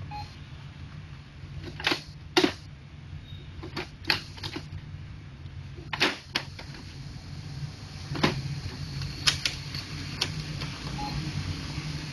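Ink cartridges being pushed into and latched in the cartridge holder of a Brother MFC-J615W inkjet printer: about a dozen sharp, irregular plastic clicks over the printer's steady low hum.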